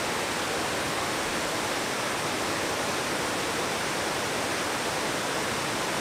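Roberto Barrios waterfall: water pouring over broad rock ledges in an even, steady rush.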